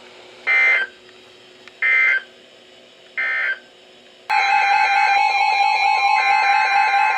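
Emergency Alert System signal played from a broadcast: three short, screeching digital SAME data bursts, then about a second later a loud, steady two-tone attention signal begins and holds. The bursts are short enough to be end-of-message codes closing one warning, and the attention tone announces the next one.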